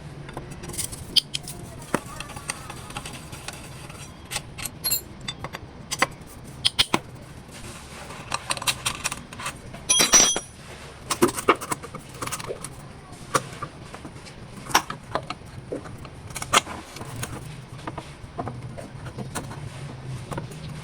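Irregular metallic clicks and clinks of small metal parts and hand tools being handled, over a steady low hum.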